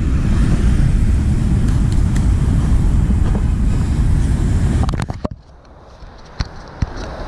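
Wind buffeting the microphone as a loud low rumble that drops away suddenly about five seconds in, followed by a few light clicks and knocks.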